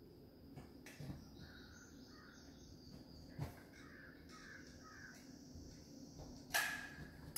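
Caulk gun worked along wooden window trim: a few light clicks, then one louder, sharp scraping click about six and a half seconds in. Faint squeaky calls sound between them.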